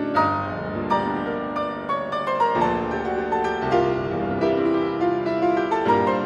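Steinway & Sons grand piano played solo: a classical piece of many quick notes over changing chords, at a steady moderate loudness.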